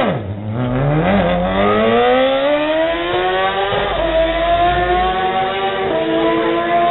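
Drag-racing sportbike engine accelerating hard off the start line down the strip, its pitch climbing steadily and dropping back briefly about a second in and again near four seconds as it shifts up.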